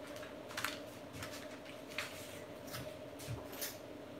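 A few light, scratchy clicks and scrapes of small tools and parts being handled on a workbench, over a faint steady hum.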